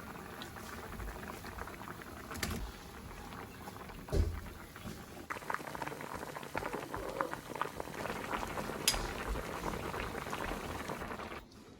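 A pot of pork and glass-noodle stew boiling, with a steady bubbling and popping. A few knocks sound over it, the loudest a dull thud about four seconds in.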